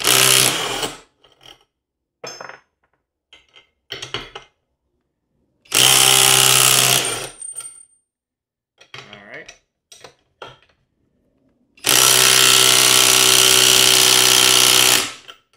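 Skil 12V right-angle impact driver hammering on half-inch bolts in three bursts. The first two are short and break the bolts loose. The third runs about three seconds and fails to break the next bolt, torqued to 85 ft-lb. Light clicks of the socket being set on each bolt fall between the bursts.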